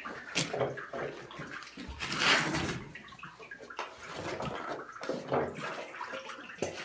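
Water rushing and splashing into a sump pit, with a louder surge about two seconds in, filling it to lift the new sump pumps' floats.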